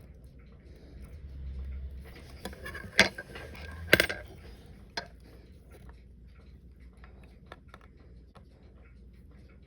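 Small metal tools and watch parts clicking and tapping at the watchmaker's bench while a Citizen Leopard Diver is taken apart: two sharp clicks about three and four seconds in, a lighter one a second later, and faint scattered ticks between them.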